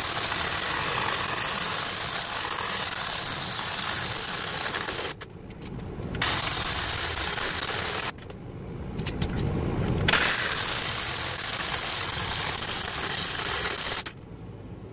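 A reciprocating saw (Sawzall) is cutting through the bars of a large electric motor's rotor. It runs in three spells with short pauses about five and eight seconds in, and stops just before the end.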